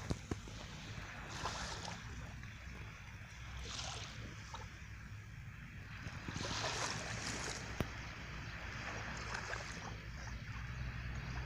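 Sea waves washing onto the shore, swelling and falling back several times, over a steady low rumble of wind on the microphone.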